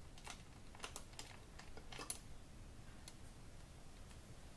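Light, irregular metal clicks from a hand tool loosening a nut on a motorcycle's chrome tank console, closer together in the first two seconds and then only a few.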